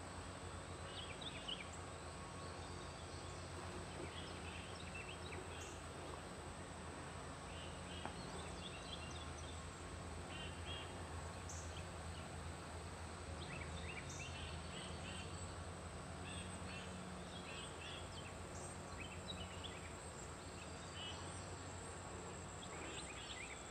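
Faint, scattered short chirps of small birds over a steady low hum and a thin, steady high-pitched tone.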